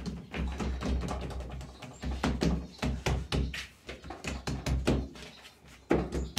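Hands pressing and patting a sweet rosca dough flat on a work table: an irregular run of dull thumps and knocks.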